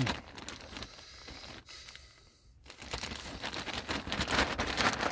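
Clear zip-top plastic bag being handled and opened by hand: a scratchy plastic rustle with a brief lull about two seconds in, then louder handling.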